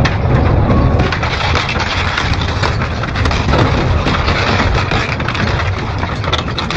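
Double-shaft industrial shredder crushing and tearing material: dense, continuous cracking and crunching over a low rumble.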